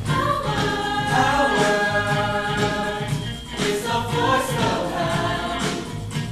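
Show choir singing long held notes in harmony over a pop accompaniment with a steady beat, heard across an auditorium.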